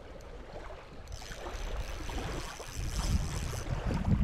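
Small waves lapping at a lakeshore, with wind buffeting the microphone, the low rumble of the wind growing stronger about three seconds in.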